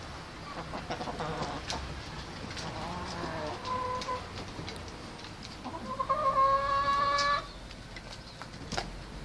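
Chickens calling: a shorter call about three seconds in, then a louder, steady call lasting about a second and a half around six seconds in.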